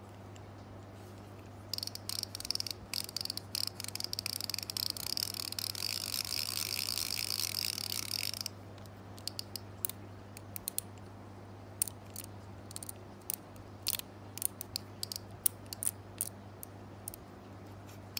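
Shimano Curado K baitcasting reel's Skygitz drag clicker ticking. A fast run of clicks blurs into a steady buzz for several seconds, then comes as scattered single clicks.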